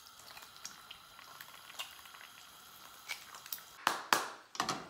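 Eggs frying in a pan on a gas hob, a faint sizzle with small ticks and drips. About four seconds in, a few short scuffing noises stand out.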